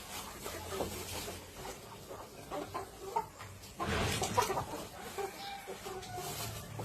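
A flock of chickens clucking with many short calls. About four seconds in there is a brief loud rustle, and near the end one hen gives a long, slightly falling call.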